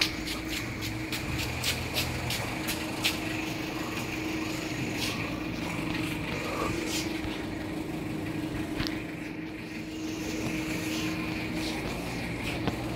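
Steady low machine hum with a held tone, and a quick run of light clicks through the first few seconds.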